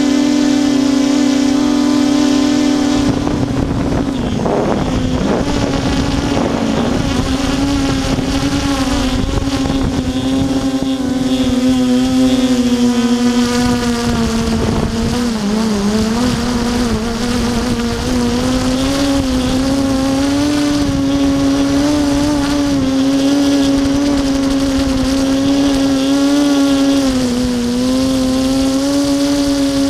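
Armattan Tilt FPV quadcopter's motors and propellers whining, heard from the craft's own camera. The pitch wavers, dips and rises again as the throttle changes, with a rushing noise joining about three seconds in.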